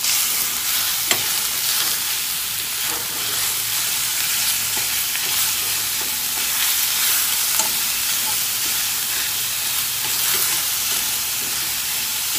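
Minced pork and diced onion sizzling steadily in hot oil in a stainless steel skillet, stirred with wooden chopsticks that make occasional light clicks against the pan.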